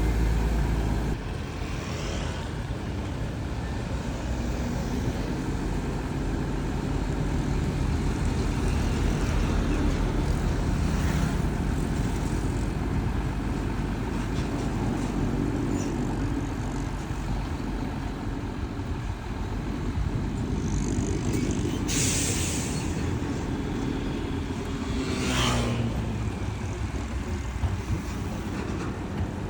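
Diesel engines of dump trucks and a Komatsu D31P bulldozer running steadily on a fill site. Two short hisses of released air come about two-thirds of the way through.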